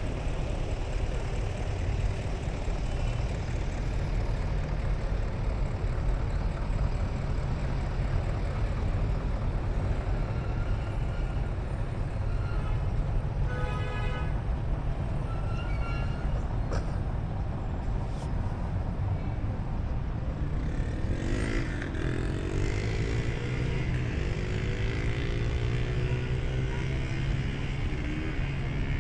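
Steady motor-vehicle traffic and engine rumble. About twenty seconds in, one engine rises in pitch as it speeds up and then keeps running steadily.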